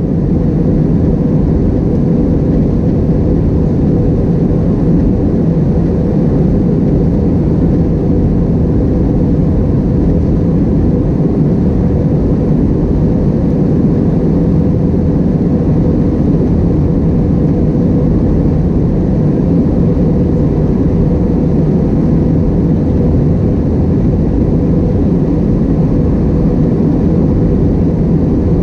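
Steady cabin noise inside an Airbus A321-231 in flight: the drone of its IAE V2500 turbofan engines mixed with the rush of air over the fuselage, with a low, even hum that holds its pitch.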